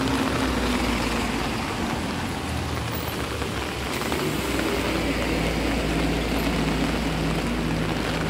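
Heavy rain falling steadily on the street, mixed with the engines of buses and vans passing close by; a deeper engine rumble builds from about halfway through.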